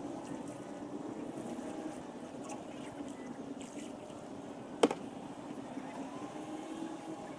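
An engine running steadily with an even hum. A single sharp click comes about five seconds in.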